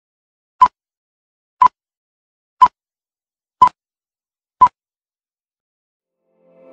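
Film countdown leader sound effect: five short beeps at the same pitch, evenly spaced one a second, with silence between them.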